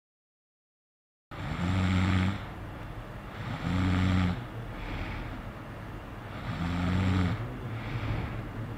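A person snoring: after about a second of silence, three loud low buzzing snores come about every two and a half seconds, with softer breathing sounds between them.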